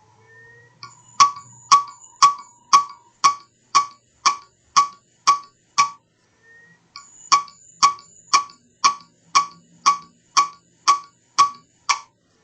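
Failing hard disk drive clicking about twice a second, in two runs of about ten clicks with a short pause between, a faint rising whine before the first run. Clicking like this may indicate a dying disk.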